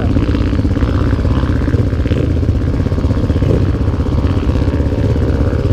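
Single-cylinder four-stroke engine of a Honda Tornado trail motorcycle (bored out to 319cc) running steadily under way, a loud, fast, even firing pulse.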